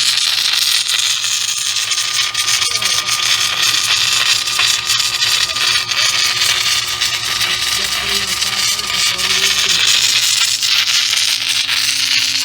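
Submerged arc welding in progress: a steady, loud hiss with dense fine crackling from the arc burning under its flux blanket, over a low steady hum.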